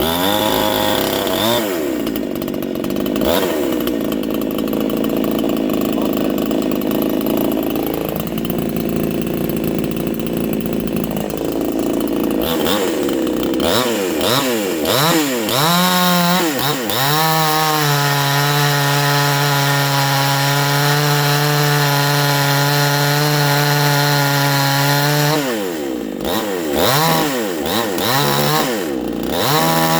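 Modified 52 cc Chinese two-stroke chainsaw, fitted with a 372 XP carburettor and tuned slightly rich, running at lower revs for about twelve seconds. It is then revved up and down several times, held at high revs for about eight seconds, and blipped again before going back to high revs.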